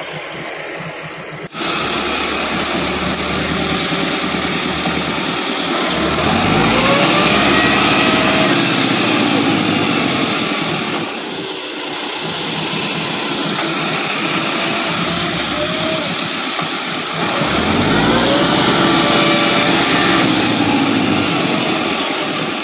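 Massey Ferguson 385 tractor's four-cylinder diesel engine running under load, pulling a loaded sand trolley. It revs up twice with a rising pitch, about a third of the way in and again about three-quarters through.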